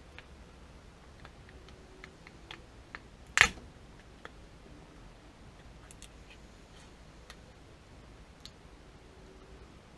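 Scattered light clicks and taps from small parts being handled, with one loud sharp snap about three and a half seconds in.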